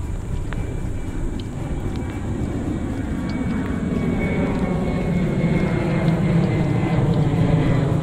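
Jet aircraft passing near, its low engine rumble growing steadily louder, with a faint high whine.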